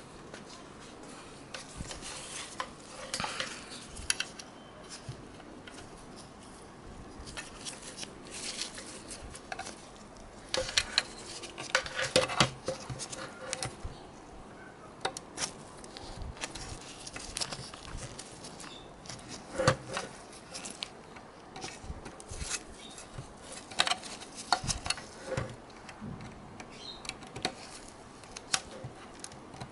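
Gloved hands handling an opened digital TV box's sheet-metal case and circuit board: scattered clicks, light knocks and rustling at irregular intervals, the loudest a little before halfway and about two-thirds through.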